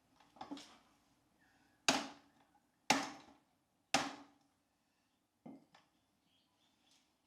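Sharp blows bending the bent foot peg of a Yamaha WR450F dirt bike back into place with a brick. There are six strikes: one moderate, then three loud ones about a second apart, then two lighter ones in quick succession.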